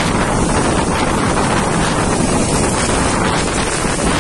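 Storm wind blowing hard across the microphone with heavy rain, a loud, steady rushing noise.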